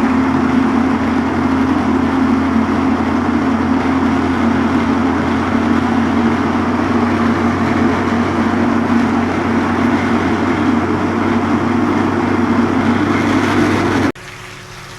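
Electric kitchen blender running steadily and loudly, grinding boiled peanuts with red pepper, onion and garlic into a paste; it switches off abruptly about 14 seconds in.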